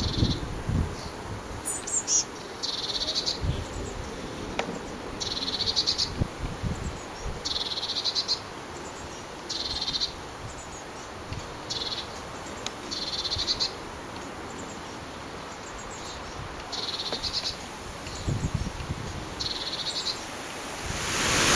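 Blue tit chicks calling: short, rapid trilled calls, high-pitched, repeated every couple of seconds. Wind gusts on the microphone underneath.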